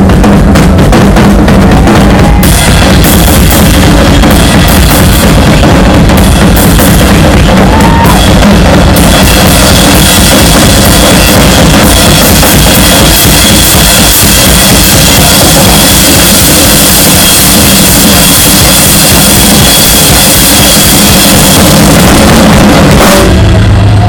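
Live rock drum solo on a full drum kit: fast, dense bass drum, snare and tom hits under a constant cymbal wash that thickens a couple of seconds in and again about nine seconds in. Very loud on a cell phone's microphone. Just before the end the cymbals and drums stop and a low note rings on.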